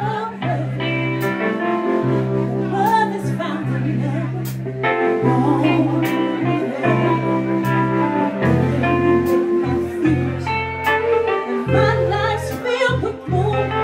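Live R&B band: a female lead vocal sung over electric bass, keyboard and drums, with cymbal strikes on the beat.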